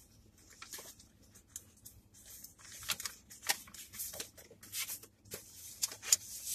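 Sheet of paper being handled and rustled, with irregular crinkling bursts and a few sharp clicks. It is sparse at first and grows busier and louder after about two and a half seconds.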